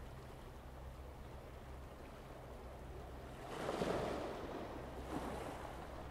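Outdoor wind rushing on the microphone over a faint steady low hum, swelling into a louder gust about three and a half seconds in and again briefly near the end.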